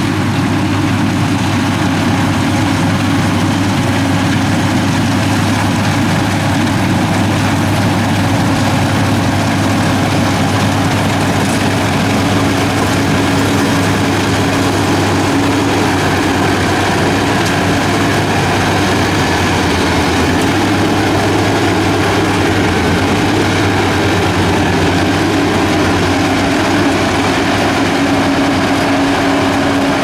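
Yanmar YH850 combine harvester's diesel engine running steadily under load, a constant drone, with its cutting and threshing machinery working as it harvests lodged rice in a muddy paddy.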